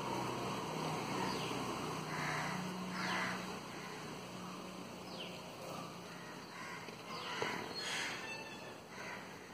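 Birds calling: a scatter of short, falling chirps and a few harsher calls, over a low steady hum that fades out about halfway through.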